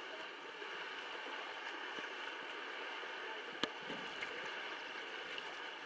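Small waves lapping and gurgling against a sea kayak, low and steady, with a single sharp tap a little past halfway through.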